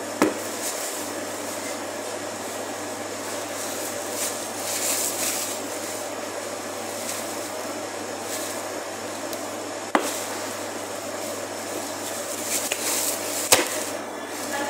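Steady background hum of a shop, with three sharp knocks of a butcher's knife against the cutting board: one just after the start, one about ten seconds in and one a second before the end.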